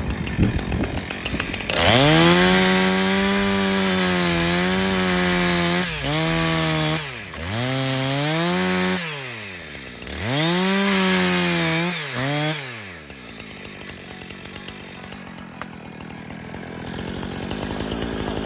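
Jonsered CS2255 two-stroke chainsaw held at full throttle, cutting into a birch tree. It drops in pitch and revs back up twice, then falls back to a low idle about thirteen seconds in.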